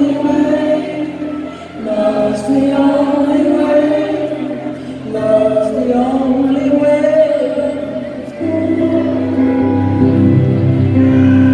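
Live rock band playing a slow song with sung vocals over sustained chords; about eight seconds in, the bass comes in fuller and heavier.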